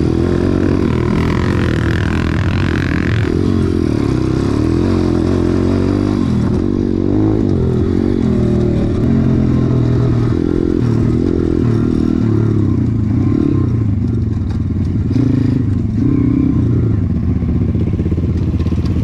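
Dirt bike engine running under way, its revs rising and falling with the throttle over rough ground, with some clatter from the bike.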